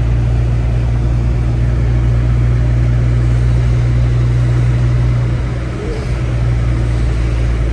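Steady low drone of a car's engine and tyres on wet pavement, heard inside the cabin while driving; it dips briefly about five and a half seconds in.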